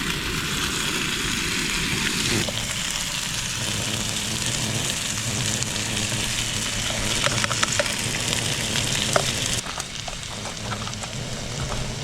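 Fish fillets frying in olive oil in a pan: a steady sizzle, with a few light clicks near the middle.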